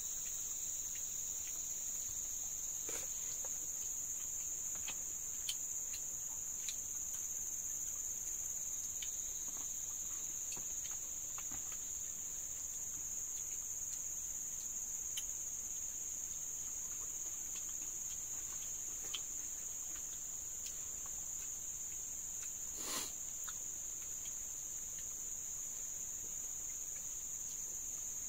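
Steady, high-pitched chorus of insects, with scattered faint clicks and taps and one sharper knock about three-quarters of the way through.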